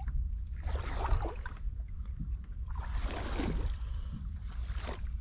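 Sea water sloshing and lapping against the side of a fishing boat's hull in three washes, over a steady low rumble.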